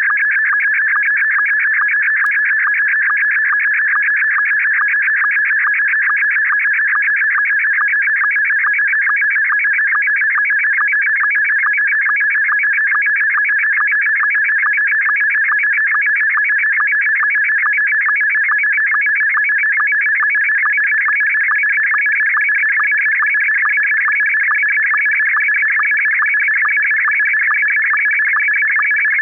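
Loud slow-scan television (SSTV) signal: warbling tones between about 1 and 2.3 kHz, chopped by a fast, steady pulse of line-sync beats, carrying the scan lines of a picture. About three-quarters of the way through, a higher tone grows stronger as the picture content changes.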